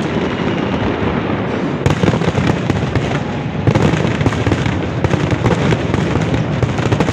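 Aerial fireworks display: a dense, continuous barrage of bangs and rapid crackling from many shells bursting at once, growing heavier about two seconds in.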